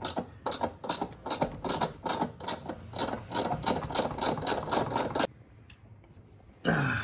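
Ratchet wrench clicking rapidly, about five clicks a second, as it turns a control-arm mounting bolt. It stops suddenly about five seconds in.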